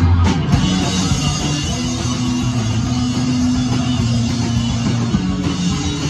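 Live band playing loud rock music, guitar to the fore.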